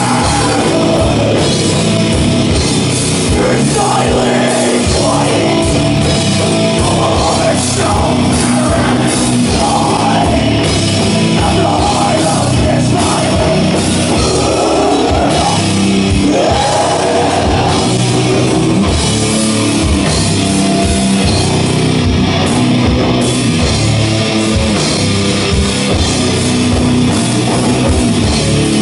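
An extreme metal band playing live and loud: distorted guitar, a pounding drum kit and a singer's vocals through the PA.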